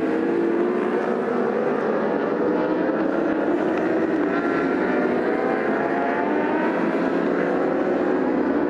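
Racing superbike engines at full race pace. Their engine note glides down and up several times as the bikes slow for the corners and accelerate out of them.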